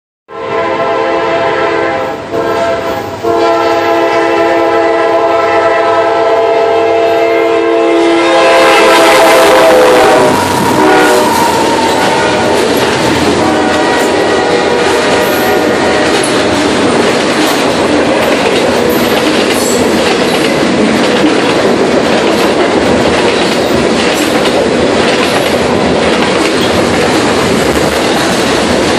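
Freight train speeding past close by, loud. The locomotive's horn sounds, broken twice briefly early on, then held in a long blast that ends about ten seconds in. The cars' wheels then rumble and clatter steadily on the rails.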